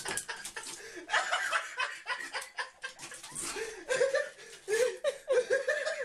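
A person laughing in short repeated chuckles, strongest in the second half, over scattered light clicks and rustles.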